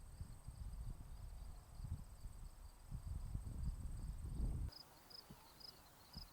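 Insects chirping: a steady high trill and a repeated chirp at about two pulses a second. Underneath is a low rumble that cuts off suddenly about three-quarters of the way through.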